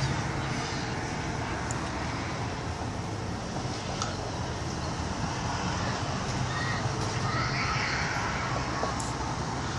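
Outdoor street ambience: steady distant traffic noise, with faint high-pitched cries carrying from a distance in the second half.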